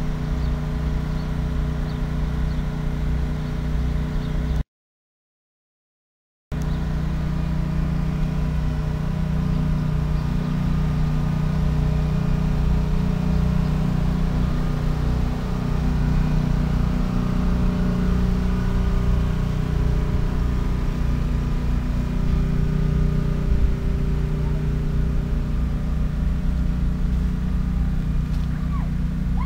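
Diesel locomotive engine running in a steady low drone with a regular throb as the passenger train moves slowly past. The sound cuts out completely for about two seconds, some five seconds in, then the drone resumes.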